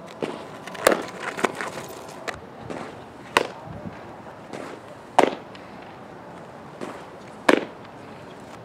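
Softballs striking with sharp knocks at uneven intervals: several close together in the first two seconds or so, then one every two seconds or so.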